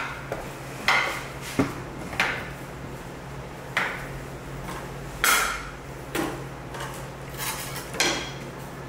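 Dough being divided and weighed on a kitchen scale: scattered knocks and clinks of kitchen tools and dough pieces on the worktop and scale, about eight at irregular intervals, over a steady low hum.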